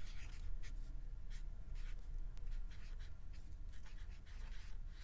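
Alcohol marker's felt tip scratching across paper in short, irregular strokes as a word is lettered by hand.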